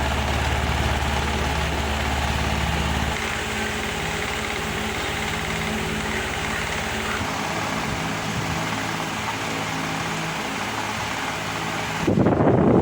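Cemaf wall fan running, its electric motor giving a steady hum under the rush of the blades. The deepest part of the hum drops away about three seconds in, and the low end thins again around seven seconds. Near the end a sudden, louder rush of air like wind on the microphone takes over.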